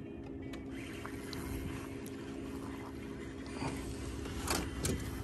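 Spinning fishing reel being cranked to bring in a hooked landlocked king salmon, with a few faint clicks, over a steady low hum and water noise from the canoe.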